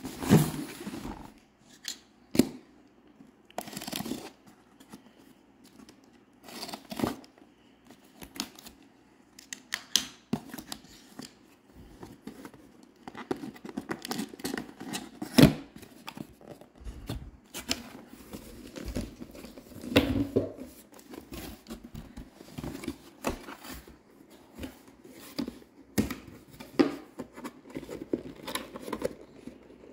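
A cardboard box and a paper checklist sheet being handled and opened on a stone counter. Irregular scrapes, rustles and sharp taps, with a louder tap about halfway through.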